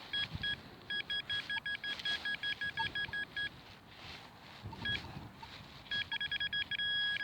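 Handheld metal-detecting pinpointer probe beeping in quick repeated bursts, several a second, then running into a steady tone near the end, the sign that its tip is right up against a metal target in the dug soil.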